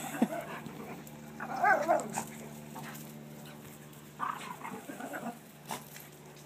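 Dogs playing together, with a short, wavering, high-pitched dog vocalization about a second and a half in and a few briefer ones around four to five seconds in.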